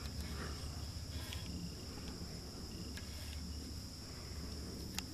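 Quiet background: a steady high-pitched chirring drone over a low hum, with a few faint clicks.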